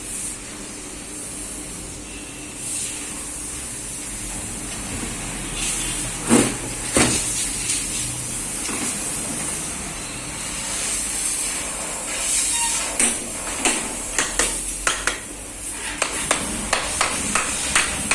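Metal knocks and clicks from reassembling a washing-machine motor as its end cover is fitted and the screws are tightened. A couple of sharper knocks come about six and seven seconds in, then a run of quick light taps, about two to three a second, near the end.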